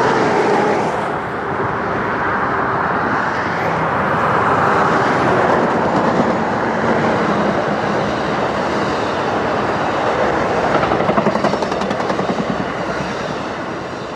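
Amtrak passenger train passing at speed: a loud, steady rush of wheels and cars on the rails. A quick run of rapid clicks comes about eleven seconds in, and the sound starts to fade near the end.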